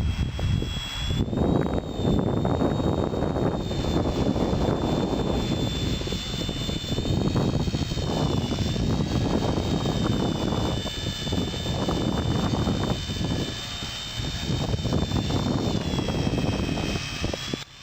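Micro RC helicopter's high motor and rotor whine, its pitch drifting up and down as the throttle changes, under heavy gusty wind noise buffeting the microphone.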